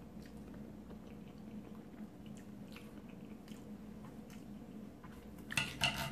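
Soft chewing with faint scattered mouth clicks, then, near the end, a quick cluster of louder clinks and scrapes as a stainless knife and fork cut food on a ceramic plate.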